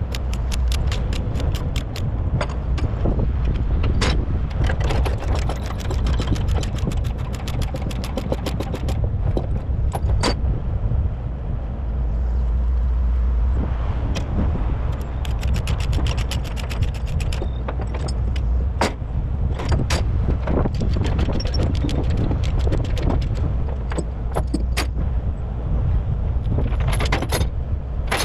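Trailer tie-down chains and ratchet binders being worked: runs of rapid metallic clicking and rattling with single clanks, over the steady low rumble of an idling engine.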